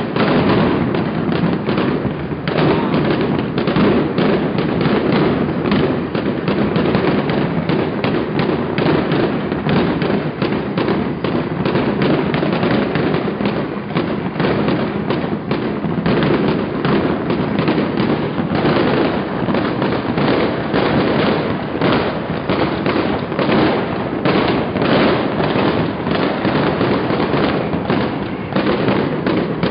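Dense, continuous barrage of fireworks and firecrackers going off all at once, overlapping bangs and crackling with no pause.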